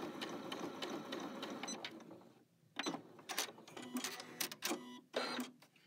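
Janome Skyline S7 sewing machine stitching a rolled hem with its rolled hem foot, a fast, even run of stitches that winds down and stops after about two seconds. It is followed by several short, separate mechanical whirs from the machine.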